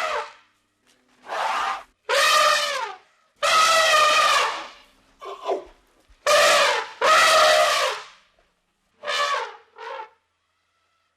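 An animal calling over and over: about eight drawn-out, pitched calls, each under a second long, separated by short silences.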